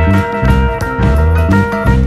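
Instrumental background music with a steady beat, sustained bass notes and drums.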